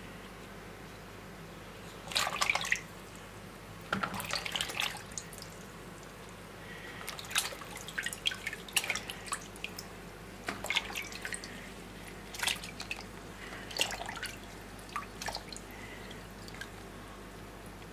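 Water splashing and dripping in a plastic basin as saffron milk cap mushrooms are rubbed clean by hand, in short irregular bursts with pauses between them.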